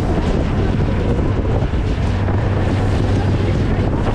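Speedboat running fast over open sea: wind buffeting the microphone over the engine's steady low drone and water rushing and spraying off the hull.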